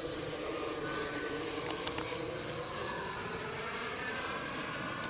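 E-flite F/A-18D radio-controlled model jet in flight, its electric ducted fan giving a steady whine whose high tone shifts slightly in pitch as it flies past.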